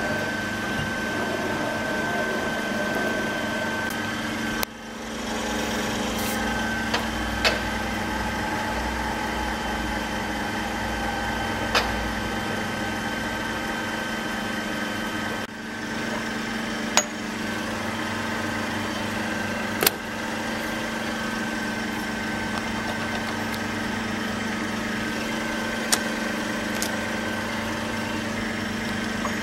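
Ziersch & Baltrusch FS 4-20T profile grinder running under power with a steady machine hum and a high whine, broken by a few sharp clicks.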